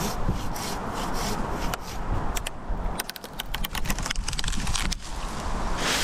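Hand pruning saw rasping through a eucalyptus limb, then a quick run of cracks as the limb breaks away, and a rustling rush of leaves near the end as it drops.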